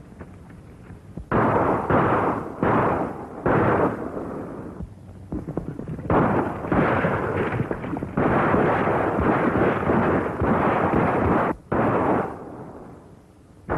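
Repeated gunfire on an early-1930s film soundtrack: shots with sudden starts and long noisy tails. They begin about a second in, come in a quick string that is almost continuous in the middle, and die away shortly before the end.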